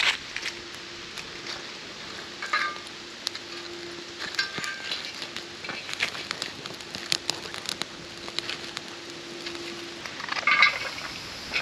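Crackling and sizzling of cooking over a wood fire: irregular sharp pops over a steady hiss, with a few brief higher-pitched sounds, the loudest near the end.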